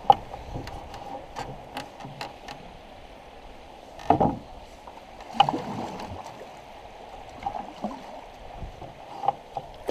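Canoe paddle strokes in river water: a few soft splashes and swirls, the clearest about four and five and a half seconds in, over a low steady wash of water, with light clicks and drips between strokes.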